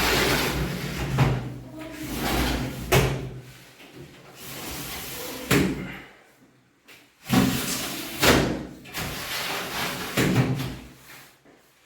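Aluminium window or door frames being handled: a series of sharp knocks and slams, about five in all, with sliding and rubbing between them.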